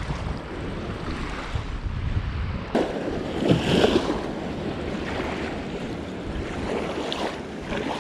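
Wind rumbling on the microphone over small waves lapping at a sandy shore. About three seconds in comes a splashing as a landing net is pushed into the shallows to scoop up a small shovelnose sturgeon.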